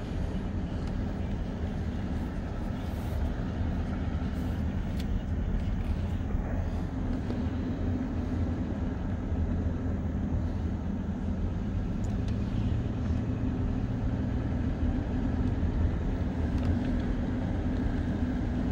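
A car being driven, heard from inside the cabin: a steady low engine hum with road noise.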